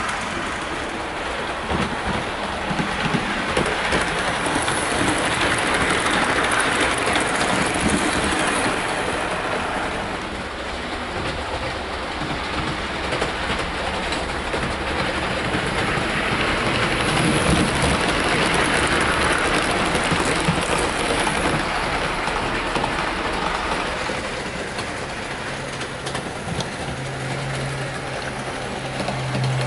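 Hornby OO gauge HST model train running on track, a continuous whirring rattle of motor and wheels that swells louder twice, about six seconds in and again around eighteen seconds, as it passes close by.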